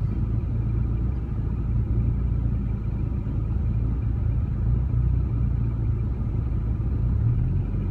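Rover 45's engine running steadily, a constant low rumble with a low hum underneath, heard from inside the car.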